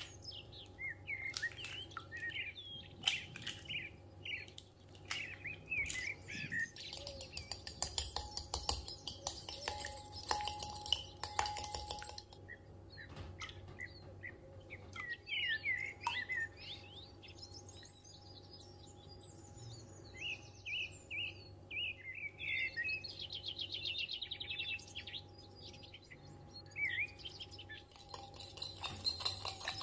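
Small birds chirping and twittering throughout, with clinks and taps of utensils against a glass mixing bowl, densest about a third of the way in.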